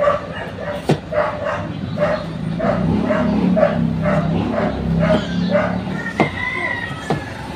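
A dog barking repeatedly, about two barks a second, stopping a little past halfway. A few sharp knife taps on a cutting board sound as vegetables are cut.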